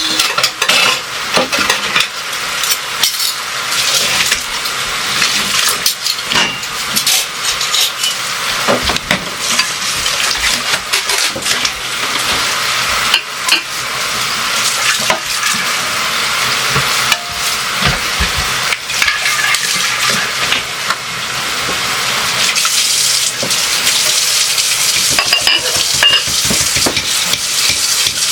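Kitchen cleanup at the sink or counter: a steady hiss with frequent clinks and knocks of dishes and utensils being handled.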